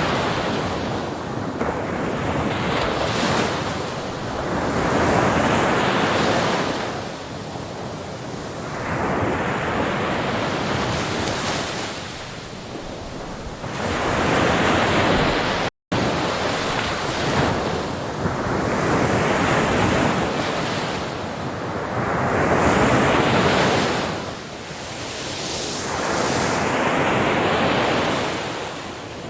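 Ocean waves breaking and washing in, a rushing surge that swells and falls back every few seconds. The sound cuts out for an instant about halfway through.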